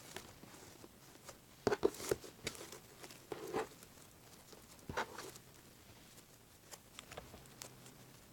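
Fluffy slime (glue and shaving cream) being stretched and folded together by hand: faint, irregular sticky clicks and soft crackling pops, a few louder ones about two seconds and five seconds in.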